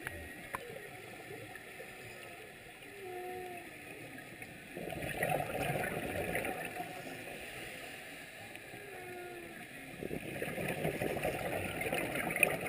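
Humpback whale song heard underwater: faint moaning calls that glide up and down in pitch. Between them come the louder bubbling rushes of a scuba diver's exhaled breath through the regulator, once about five seconds in and again from about ten seconds.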